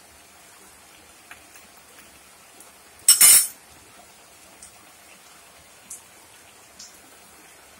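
A metal ladle set down on a ceramic saucer with one short, loud clatter about three seconds in, over the soft hiss and scattered faint pops of curry boiling in a clay pot.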